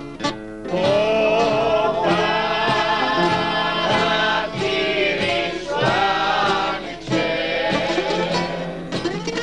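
Greek bouzouki and acoustic guitar playing a laïko song while men sing along; the singing comes in about a second in and pauses briefly between phrases.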